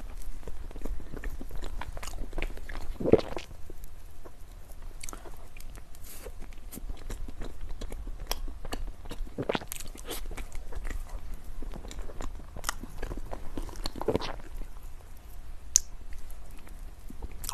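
A person chewing and biting dessert: steady mouth clicks and chewing, with a few louder crunchy bites spaced several seconds apart.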